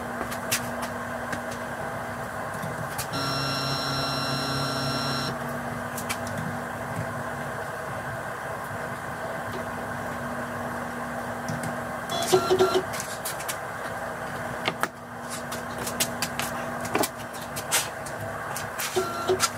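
CNC router being set up to zero its bit with a touch plate: a steady machine hum, with the machine's axis motors whining for about two seconds a few seconds in and again briefly later. Scattered small clicks and knocks run throughout.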